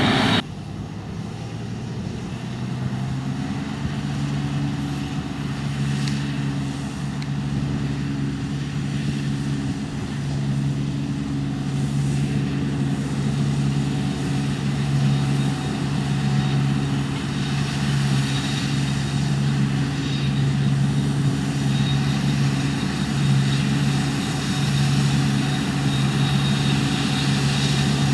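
Deutz Fahr 6095 HTS combine harvester's diesel engine running steadily under load, a low hum with a gentle regular pulsing, growing a little louder over the first few seconds.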